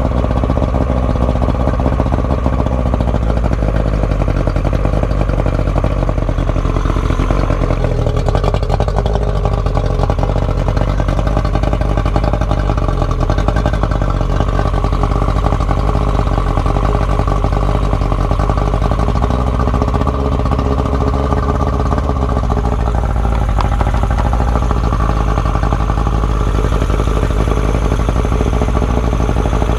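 Yamaha 70 hp two-stroke three-cylinder outboard idling steadily, its speed lifting briefly twice. It is running on antifreeze through the cooling system while the gasoline is disconnected and the carburetors are drained for winterizing.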